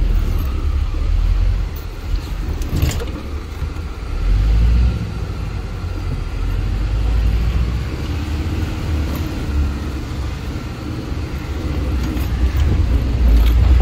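Cabin noise of a Mitsubishi Delica's 2.5-litre 4D56 diesel driving over a rough off-road race track: a heavy, uneven low rumble of engine and body, with a sharp knock about three seconds in.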